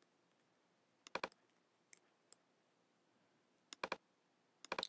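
Faint computer clicks as the on-screen pointer is used, each a quick press-and-release pair: one about a second in and two near the end.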